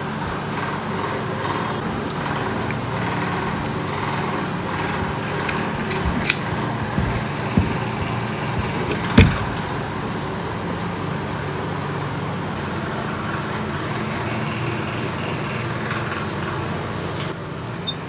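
A steady whirring hum, with a few light clicks and one sharper knock about nine seconds in as the plastic phone-board heating platform is handled and turned on the bench.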